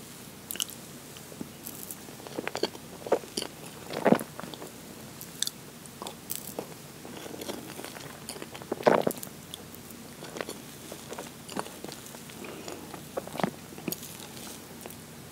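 Close-miked eating of a strawberry cream cake: a metal fork cutting into the soft sponge and whipped cream, and wet chewing and mouth sounds, as irregular soft clicks and smacks with two louder ones about four and nine seconds in.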